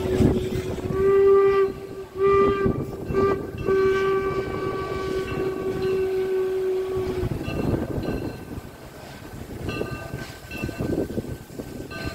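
Steam locomotive whistle blowing a few short blasts and then one long blast of several seconds that stops about seven seconds in, over a rough low rumble.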